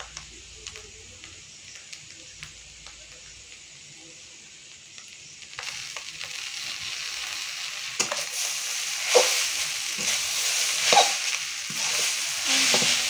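Chowmein frying in a hot steel karahi while a metal spatula stirs it. The first half is fairly quiet, with light clicks. About halfway through, a loud sizzle comes in, with sharp spatula scrapes and knocks against the pan.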